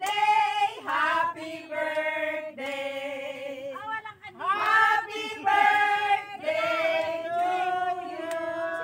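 A group of people singing a song together, voices in unison with long held notes.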